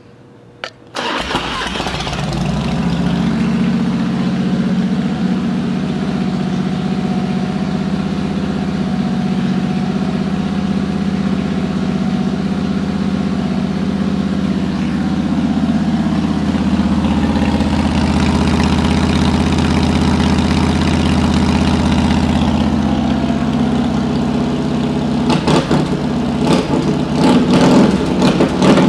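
2000 Harley-Davidson Softail Deuce's Twin Cam 88B V-twin, fitted with Vance and Hines pipes, starts about a second in and settles into a steady idle. Near the end it is revved several times in quick blips.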